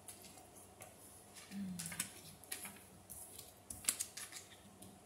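Tarot cards being handled over the table: a scatter of soft, irregular card clicks and flicks, a little stronger about two seconds in and again near four seconds.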